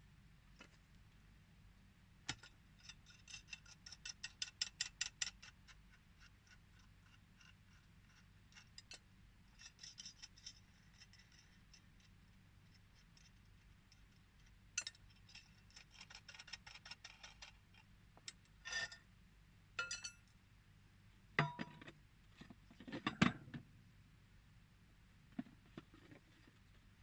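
Runs of quick light clicking, about seven clicks a second, with a few separate louder knocks, from tools and fittings being handled during pipe-fitting work.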